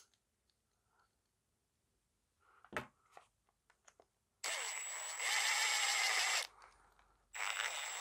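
Cordless power driver running in a 10 mm bolt, in two runs: about two seconds from a little past the middle, stepping louder partway through, then a short second run near the end, each with a steady high whine over the motor. A single sharp knock comes a little before the middle.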